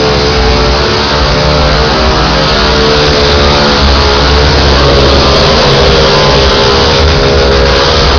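A vehicle engine running loud at high revs, its pitch rising and falling slightly as the throttle is worked.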